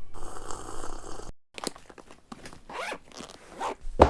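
A bag's zipper being pulled in several quick scraping strokes, the last and loudest near the end.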